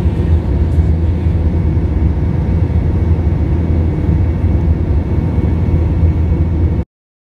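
Steady low rumble of a jet airliner's cabin in flight, engine and airflow noise heard from a window seat. It cuts off suddenly near the end.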